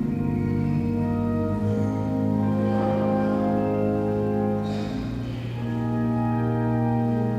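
Church organ playing slow, held chords. The chords change a couple of times, about two seconds in and again near five seconds.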